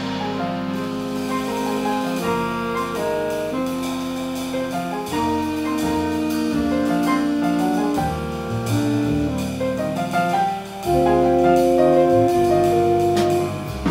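Small jazz band playing live: a grand piano comping under alto and tenor saxophones holding long notes, with double bass beneath. The band swells louder about eleven seconds in.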